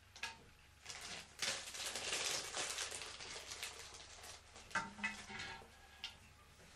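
Rattandeep tin pop-pop boat's steam engine crackling and popping irregularly in the water, densest in the first half, with a few separate pops near the end.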